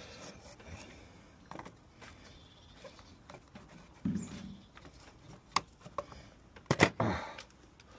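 Screwdriver working the cover screws of a plastic rotary isolator, with small scratchy clicks and scrapes. A few louder plastic clicks and knocks come about three-quarters of the way through as the cover is handled.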